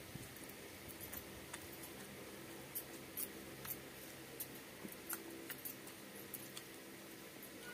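Faint, irregular small clicks and crackles of eating rice by hand: fingers mixing rice on a banana leaf, with wet mouth sounds of chewing.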